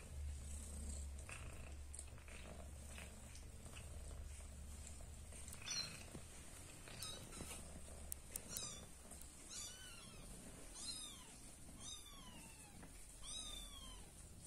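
Cat purring low and steady for the first few seconds. From about the middle, kittens give a run of high mews that fall in pitch, roughly one a second, about seven in all.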